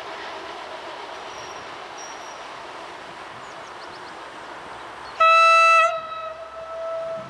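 PESA SA133 diesel railbus running past, then about five seconds in its horn sounds one loud blast that drops to a softer held tone for over a second.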